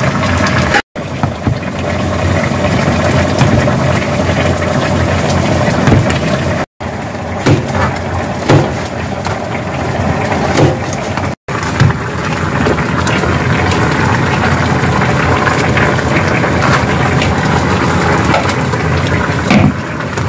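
A pot of braised spicy chicken boiling on a gas stove, a loud steady noise with a faint hum in it. In the middle come a few sharp knife chops on a plastic cutting board. The sound drops out briefly three times.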